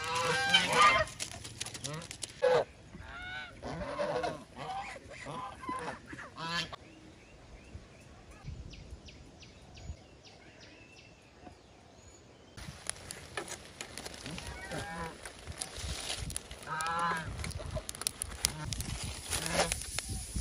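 Geese honking in runs of repeated calls, which fall away for several seconds in the middle and then start again.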